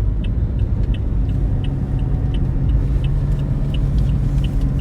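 Steady car engine hum and road rumble heard inside the cabin, with the turn-signal indicator ticking evenly about two to three times a second.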